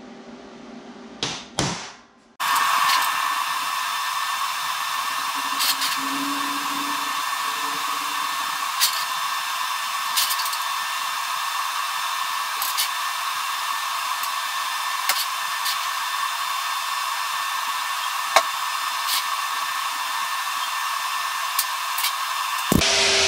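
Two quick hammer taps on a steel center punch, then a steady running machine noise, a hum with hiss, switches on abruptly and runs on with a few light clicks of metal being handled.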